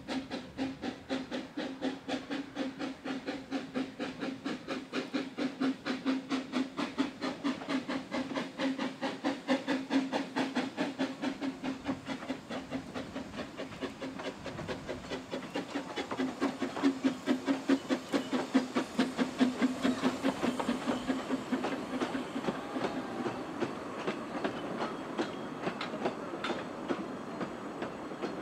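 Narrow-gauge steam locomotive chuffing as it hauls its train into the station, about two exhaust beats a second, growing louder as it draws near. Near the end the beats fade and the coaches roll past, wheels clicking over the rail joints.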